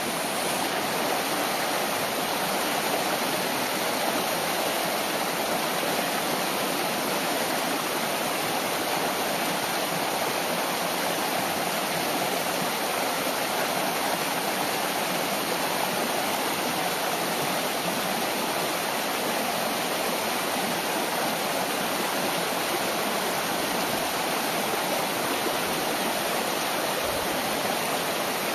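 Shallow mountain stream rushing steadily over bare rock slabs.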